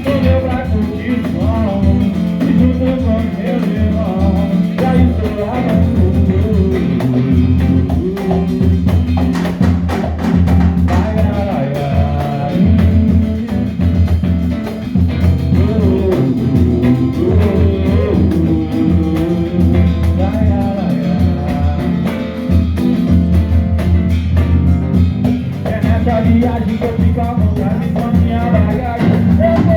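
Live pagode band playing samba-pagode with a steady percussion beat, strummed strings and a singing voice.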